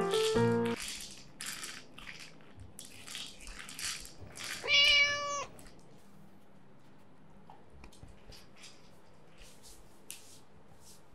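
The tail of a light piano tune stops, then a plastic treat-dispensing tumbler toy rattles in short bursts as a Samoyed noses and pushes it across a carpet. About five seconds in comes one steady, high-pitched cry of under a second, followed by a few faint taps.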